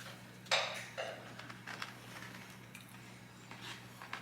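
Close-up mukbang eating sounds: chewing spicy chicken nuggets, with two short louder mouth sounds about half a second and a second in and small clicks after them, over a low steady hum.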